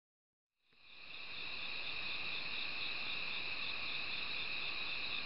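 A steady chorus of crickets chirping at night, fading in from silence just under a second in.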